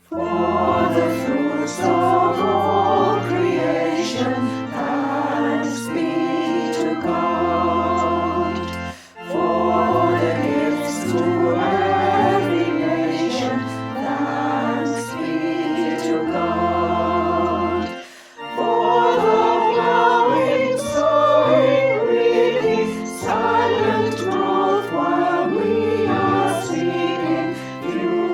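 Choir singing a sacred piece in sustained chords, starting right after a pause and moving in phrases with short breaks about 9 and 18 seconds in.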